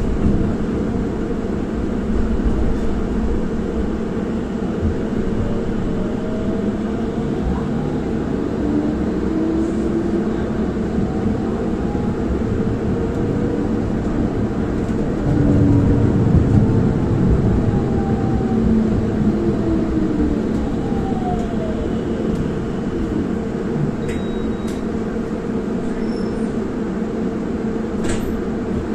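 Tram running along its track, heard from inside the car: a steady rumble of wheels on rails, with the traction motors' whine rising in pitch as it speeds up and falling again as it slows. It is loudest about halfway through.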